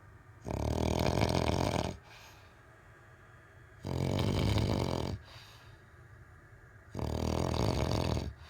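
A man snoring: three loud, rasping snores, each lasting just over a second, at a steady rhythm about every three seconds, with quiet breaths in between.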